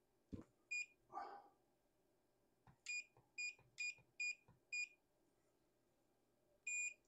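FNIRSI digital multimeter beeping as its front buttons are pressed to switch it to the resistance range. There is a single short beep about a second in, a run of five quick beeps, and a longer beep near the end, with a few faint knocks between them.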